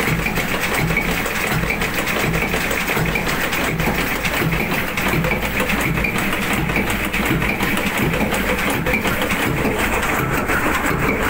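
An old tug boat's slow-turning diesel engine running steadily, with an even, regular mechanical beat from its open valve gear and rocker arms.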